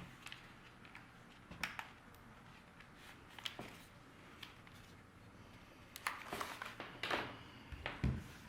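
Sparse small clicks and rustles of a keyboard's USB cable being handled and plugged in, the handling getting busier in the last couple of seconds.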